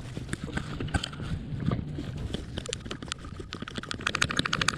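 Tools and parts clattering as someone rummages through a tool bucket: scattered clicks and knocks, turning into a quick rattling run near the end.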